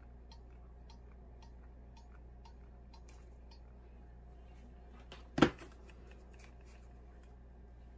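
Faint quick ticking, about three a second, that stops a few seconds in, then one sharp knock about five and a half seconds in, from handling on the craft table. A low steady hum runs underneath.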